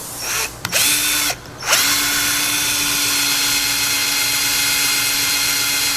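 Power drill with a 3/8-inch bit boring a hole through a kayak's thick plastic hull. A short burst comes first, then after a brief pause a steady motor whine runs for about five seconds and winds down near the end.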